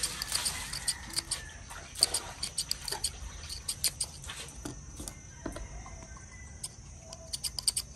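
Kitchen scissors snipping fresh red chillies: a string of sharp little clicks at an uneven pace, coming thicker again near the end.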